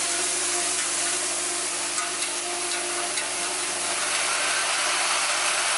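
A washer assembly machine for long machine screws runs with a steady hiss and low hum, with scattered light metallic clicks of parts. The noise gets a little brighter about four seconds in.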